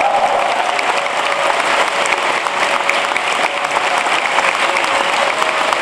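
Large audience applauding: dense, steady clapping, with a faint steady tone underneath.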